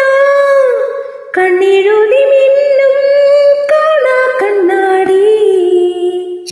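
A woman singing a slow Malayalam song, holding long notes that glide between pitches. The voice drops away briefly about a second in and fades near the end.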